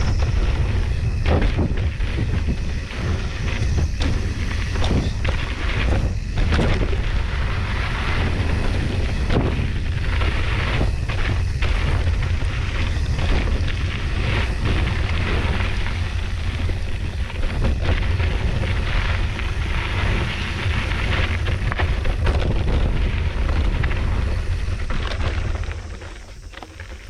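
Mountain bike riding a rough dirt trail at speed: heavy wind rumble on the microphone, tyre noise and frequent knocks and rattles from the bike over bumps. It eases off near the end.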